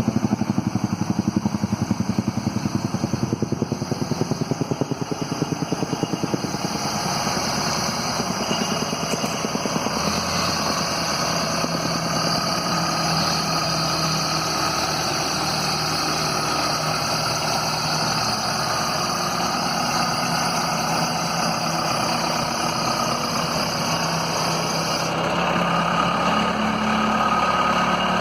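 Diesel engine of a 1998 Case 580L Series 2 loader backhoe running at idle. It has a heavy, uneven pulse for the first several seconds, then settles into a steady idle.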